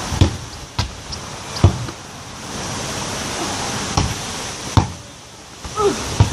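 Football being bounced and kicked: half a dozen dull thuds, unevenly spaced, over a steady rushing background.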